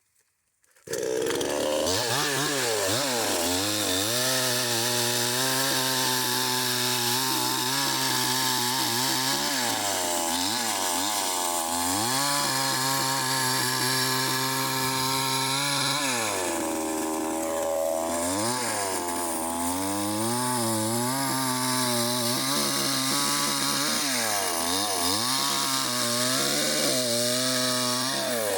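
Chainsaw running and cutting into a dead hardwood ash trunk, coming in about a second in; its engine note repeatedly sags as the chain bites into the wood and climbs back in between.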